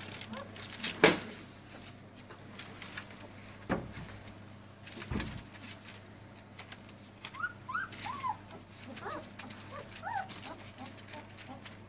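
Three-week-old German Shepherd puppies whimpering, with short, high squeaky cries that rise and fall, mostly in the second half, over light scratching and rustling as they move on paper. A sharp knock about a second in is the loudest sound.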